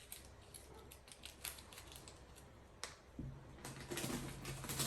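Scattered light clicks and rustles of paper and sticky tape being handled by hand. A low hum and louder rustling come in after about three seconds.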